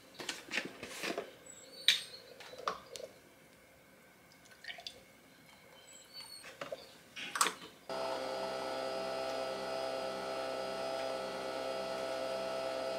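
Scattered clicks and knocks of a glass being handled and milk poured into a glass of ice; about eight seconds in a Nespresso coffee machine starts brewing with a steady hum.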